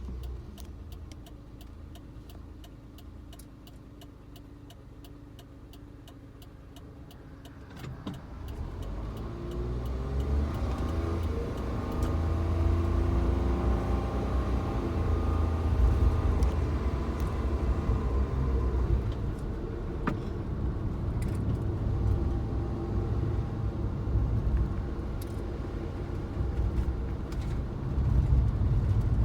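Suzuki Jimny driving: quiet at first with a fast, even light ticking, then pulling away about eight seconds in, the engine note rising as it accelerates before settling into steady running.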